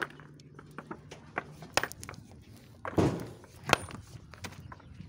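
Sledgehammer striking rock: a few sharp knocks of iron on stone, the loudest about three seconds in and again just before four seconds, with loose stones crunching and clattering.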